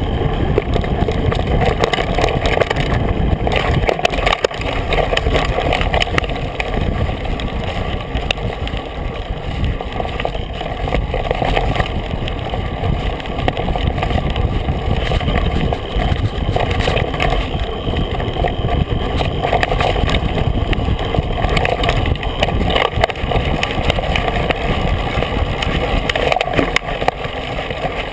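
Mountain bike rolling fast along a dirt trail, heard through a bike-mounted camera: steady wind rush and tyre rumble on the microphone, broken by frequent short knocks and rattles as the bike goes over bumps.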